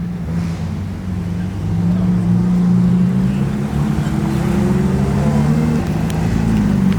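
Sports car engine running at low revs as the car pulls slowly away, the low engine note growing louder over the first couple of seconds and then holding steady with a slight rise in pitch.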